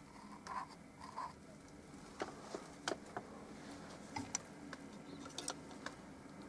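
A small bristle paintbrush working on a canvas: two soft scratchy strokes in the first second or so, then light clicks and taps scattered through the rest, over a faint low hum.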